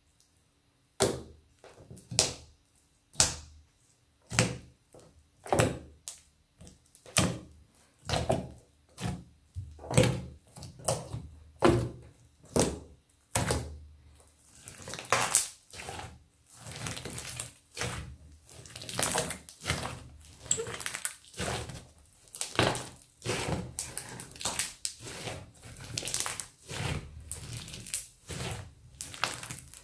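Fingers poking and pressing into a flat sheet of slime, each press giving a short squishing pop, about one a second. From about halfway the sounds come quicker and overlap as the slime is squeezed and kneaded by hand.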